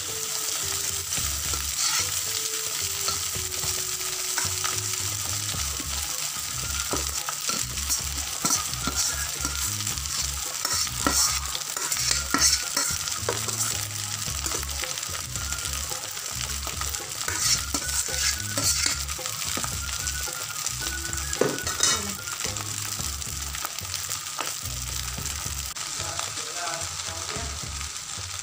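Fried rice sizzling in a wide metal wok as cooked rice is tipped in and stirred and turned with a metal spatula, the spatula scraping the pan again and again over a steady frying hiss.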